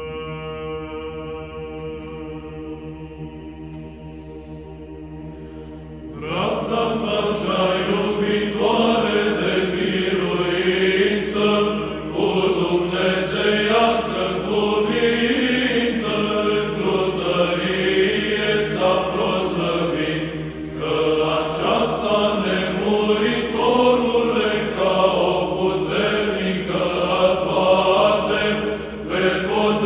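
Psaltic choir singing Byzantine chant. For about the first six seconds only a steady held drone note (the ison) sounds; then the voices come in louder with the melody over it.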